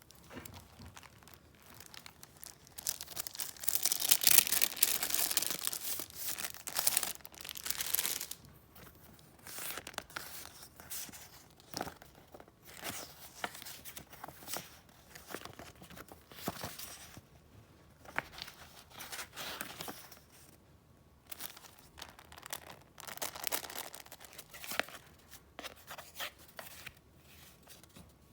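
Paper and packaging handled by hand, crinkling and rustling, with a loud dense stretch from about three to eight seconds in, then softer scattered rustles.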